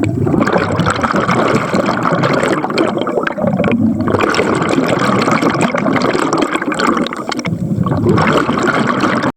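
Underwater bubbling and gurgling from a scuba diver's exhaled air, with short breaks about four seconds in and again near seven and a half seconds.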